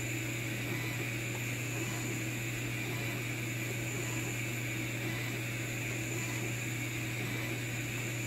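Longer Ray 5 10 W diode laser engraver running: a steady whir and hum from the laser module's cooling fan and the motors moving the head over the piece as it engraves.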